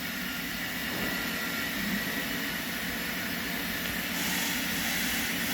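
Vacuum pump of a leak test chamber running steadily, a low hum with a hiss over it; the hiss grows a little brighter about four seconds in.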